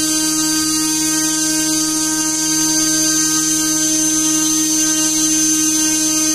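3D-printed brushless motor spinning a 9050 two-blade propeller at a steady speed: a constant hum and whine with the rush of air from the propeller.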